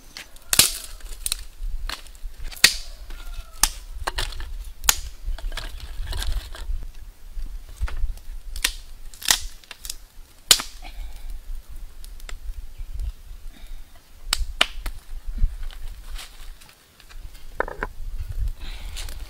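Sharp cracks and knocks, about one a second, from stones and dry sticks being handled and broken while a cooking fire is built.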